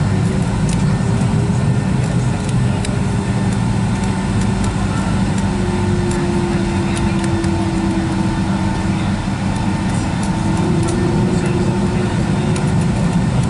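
Steady cabin noise inside a Boeing 757-200 near the wing: a low engine and airflow rumble with a steady hum that drifts slightly in pitch.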